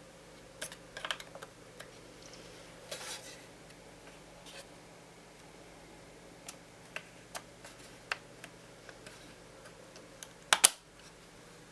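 Small plastic and metal clicks and taps of hands working on an opened laptop's underside, irregular and spread out, with a sharp double click about ten and a half seconds in.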